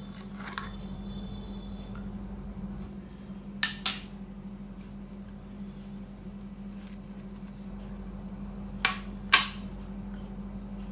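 Fidget spinner being handled: two pairs of sharp metallic clicks, about five seconds apart, over a steady low hum.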